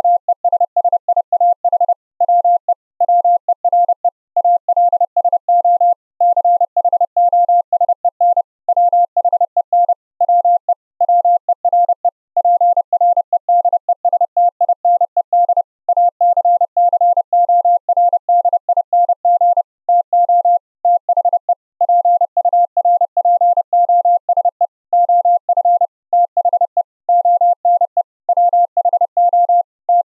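Morse code audio: a single steady tone keyed rapidly on and off at high speed, in runs of dots and dashes with short gaps between characters. It arrives as Opus-coded audio streamed over the internet.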